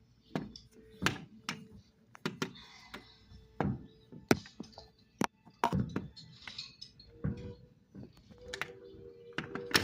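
Fireworks bursts: a dozen or so sharp pops and bangs at irregular intervals, with a faint steady tone underneath.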